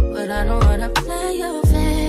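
Background music with a steady beat, deep bass hits that drop in pitch, and held chords.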